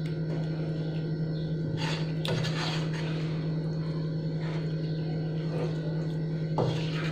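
A spatula stirring and scraping through aubergine and thick masala gravy in a nonstick wok, a few short scrapes about two seconds in and again near the end, over a steady low hum.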